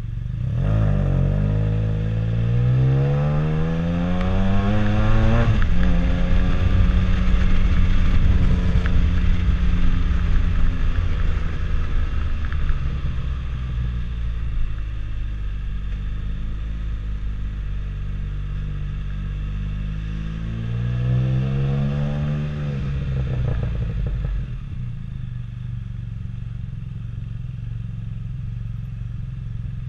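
Can-Am Spyder F3-S three-wheeled motorcycle's three-cylinder engine heard from the rider's seat: it pulls away with the engine note rising for about five seconds, shifts gear and runs steadily, then rises again about twenty seconds in before dropping to a quieter, steady low run near the end.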